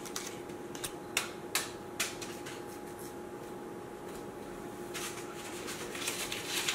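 Scattered light clicks and knocks, then denser rustling and clicks from about five seconds in, as a person moves quickly about a kitchen, over a steady faint hum.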